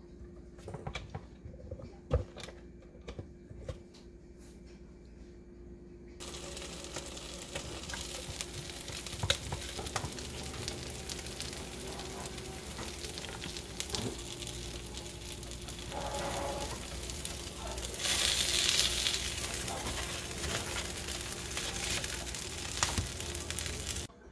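A quesadilla sizzling in an electric quesadilla maker: a steady hiss with many small pops that starts abruptly about six seconds in, after a few light taps and clicks, and grows louder for a couple of seconds near the end.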